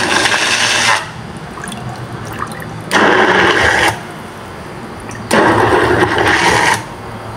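Hand-held immersion blender churning soaked dried red chiles, onion and garlic in water into a chile puree. It comes in three loud bursts of a second or so each, about a second, three seconds and five and a half seconds in, with quieter spells between them.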